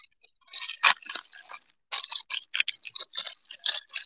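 Clear plastic packaging crinkling and crackling in quick, irregular clicks as it is unwrapped by hand from a small cutter.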